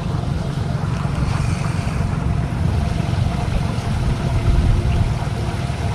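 Wind buffeting the camera's microphone: a low, uneven rumble.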